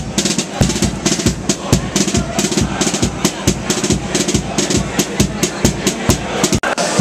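Carnival street group performing: drums beat a brisk, steady rhythm of about four strokes a second under group singing, with a momentary break near the end.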